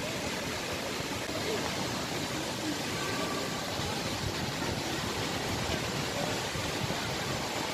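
Steady rushing of flowing water, with wind buffeting the microphone in a low, fluttering rumble.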